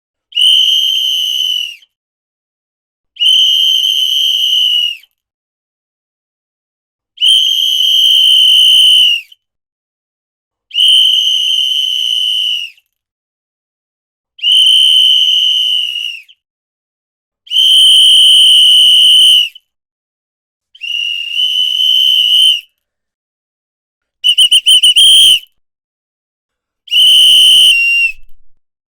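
A whistle blown in a series of nine blasts, each one to two seconds long at one steady, shrill pitch, with short silent pauses between them. One blast a little past the middle is broken into a rapid warbling trill instead of a held note.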